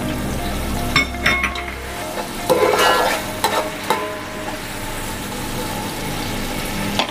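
Sliced onion, curry leaves and whole garam masala (peppercorns, cumin, cloves) sizzling steadily in hot oil in an aluminium pot. A slotted metal spoon stirs them, clinking and scraping against the pot about a second in and again around three seconds in.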